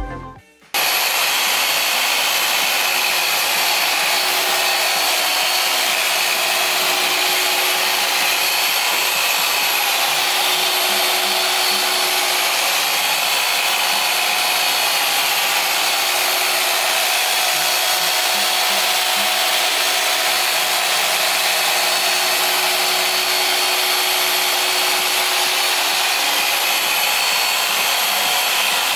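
A car paint machine polisher with a small foam pad runs steadily on the door paint during a paint enhancement polish. It starts abruptly under a second in as music cuts off, then holds an even hum with a hiss of the pad on the paint.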